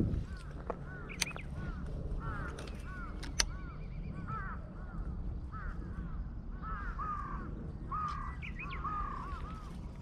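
Crows cawing again and again, short arched calls that overlap and come thicker in the second half. A sharp click stands out about three and a half seconds in.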